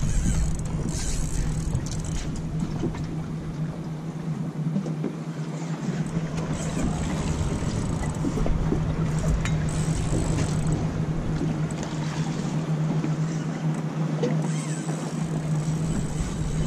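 Steady low hum of a boat's idling motor, with wind and water noise.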